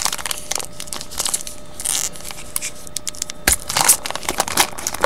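Baseball card pack wrapper being torn open and crinkled, with irregular crackling rustles that are loudest about three and a half seconds in.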